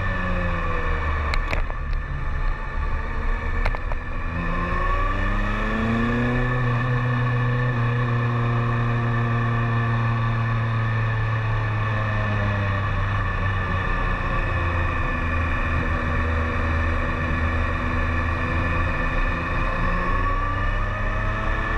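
BMW K1300S inline-four engine running on the move: the engine note falls as the bike slows, climbs again as it accelerates about five seconds in, holds steady for a long stretch, then dips and picks up again near the end. Two sharp clicks come in the first four seconds.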